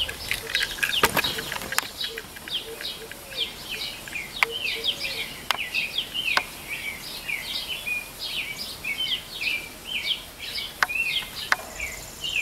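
Small birds chirping fast and continuously, several short notes a second. A few sharp clicks are scattered through it, the loudest about a second in.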